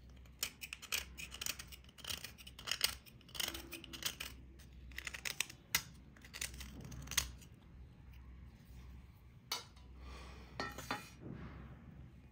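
A serrated metal blade scraping soaked grey crust off a piece in short, crisp, irregular strokes, with crackles as the crumbly material breaks away. There is a longer scrape a little before the end.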